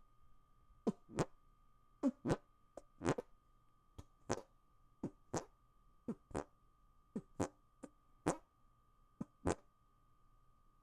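Fart sounds made with the hands, squeezing air out between them: a string of short, sharp fart-like squelches, mostly in quick pairs about once a second.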